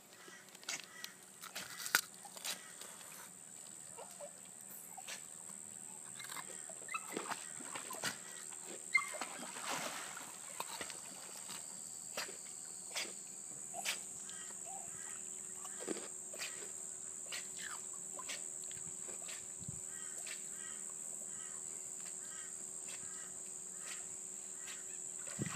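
Small terrier dog paddling in a swimming pool, with faint, scattered splashes and clicks. Under it runs a steady high-pitched drone and a low steady hum, and there are occasional short chirps.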